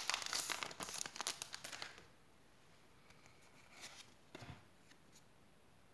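Foil Pokémon booster pack wrapper crinkling and tearing as it is opened, a dense crackle for about two seconds. Then it goes nearly quiet, with a couple of soft brief rustles as the cards are drawn out of the pack.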